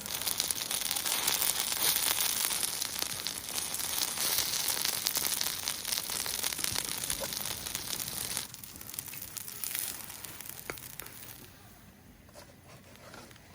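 Oil and food sizzling and crackling on a very hot cast-iron cauldron lid used as a griddle. It drops sharply about eight and a half seconds in and goes on more faintly.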